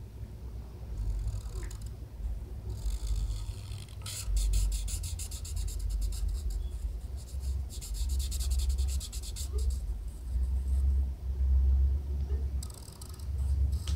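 Felt-tip marker scratching quickly back and forth on paper while a small shape is coloured in, in several spells of a second or two, over a low rumble.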